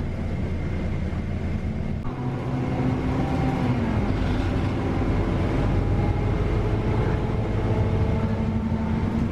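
Scania K320UA diesel engine of an articulated city bus, heard from inside the passenger cabin, running under load and getting louder about two seconds in as the bus gathers speed; its note dips once a few seconds in.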